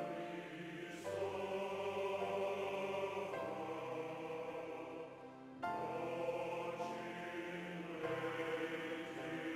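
Slow background music of sustained, chant-like choral chords, changing every second or two, with a brief drop in level about five and a half seconds in.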